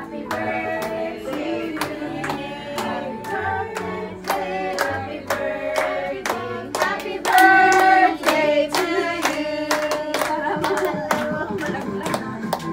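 Voices singing a melody together, with steady hand-clapping in time, a few claps a second.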